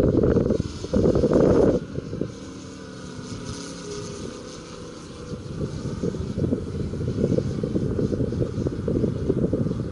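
Moki S180 five-cylinder radial engine on a large-scale RC La-7 warbird, heard as a faint, steady, distant drone that wavers slightly in pitch as the plane flies overhead. Wind buffeting on the microphone is the loudest sound: a low rumble for the first two seconds that returns about six seconds in.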